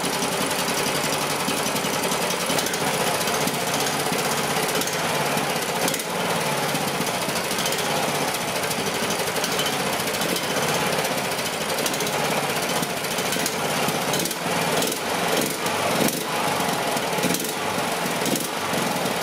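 Predator-type 420cc single-cylinder small engine running with no load on a new Hipa replacement carburetor, the level wavering a little in the last few seconds. It runs despite only 60 psi of compression.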